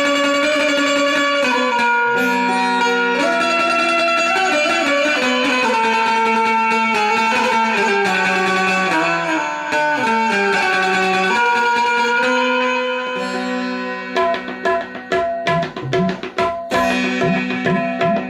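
Indian banjo playing a melody in long held notes that move up and down. Tabla strokes come in about fourteen seconds in, sharp and rhythmic under the melody.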